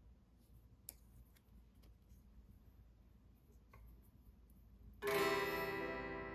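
Quiet room tone with a couple of faint clicks, then about five seconds in a chord on a plucked string instrument sounds once and rings, slowly fading.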